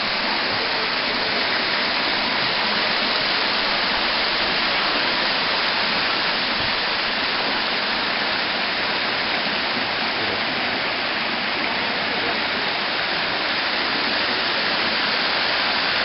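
Bigăr Waterfall's water spilling in thin streams over a moss-covered rock and splashing below: a steady, even rush of falling water.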